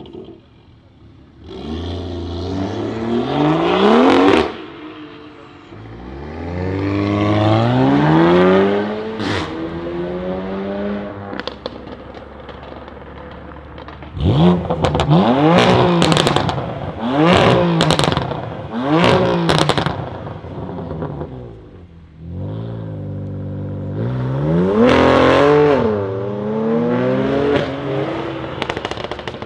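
BMW M3 F80's twin-turbo straight-six through a full titanium iPE exhaust, revved hard over and over: two long climbs early on, then four quick blips in a row about halfway through and two more near the end. Sharp crackles and pops come as the revs drop.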